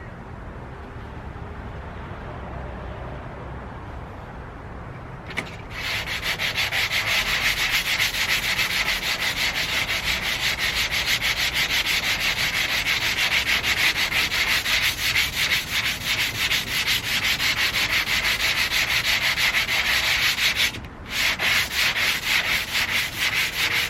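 80-grit sandpaper rubbed back and forth over a painted car door in fast, even strokes, scuffing through the paint. The sanding starts about six seconds in and pauses briefly near the end.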